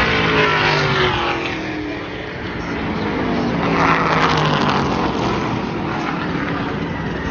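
A pack of V8 street stock race cars racing past at full throttle, their engine notes falling in pitch as they go by. The sound swells again about four seconds in as more cars pass.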